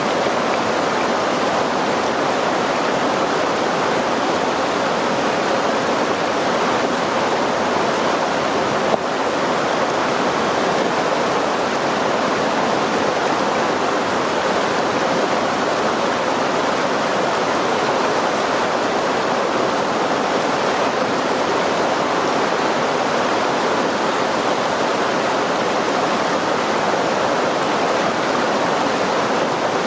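River stream water flowing steadily, a continuous even rush of running water.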